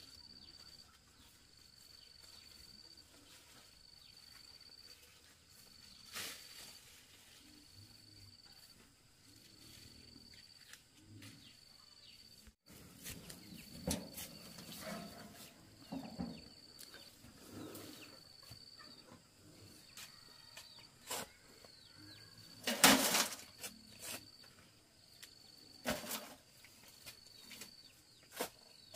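A shovel digging soil and tipping it into a metal wheelbarrow, with scrapes and thuds through the second half, loudest about three-quarters of the way in. Behind it an insect calls throughout in short, even, high buzzes about once a second.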